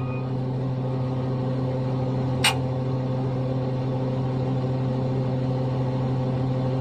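Steady drone of a mobile crane's diesel engine running while it holds a load, with one short sharp click about two and a half seconds in.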